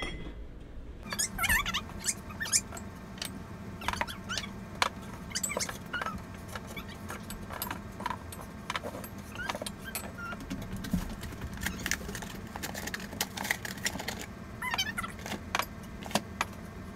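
Ceramic mugs and dishes clinking and knocking as they are set down on a wooden cupboard shelf: many short, sharp clinks scattered irregularly.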